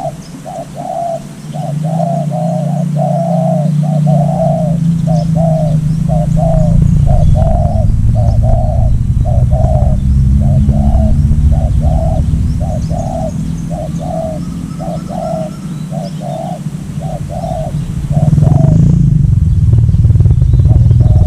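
A decoy dove cooing in a fast, even series of short notes, nearly two a second, which stops a few seconds before the end. Under it runs a low rumble that grows much louder near the end, like an approaching motorcycle.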